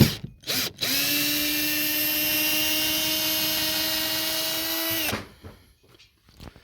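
Power drill running steadily for about four seconds, backing screws out, then stopping. It is preceded by a couple of short knocks.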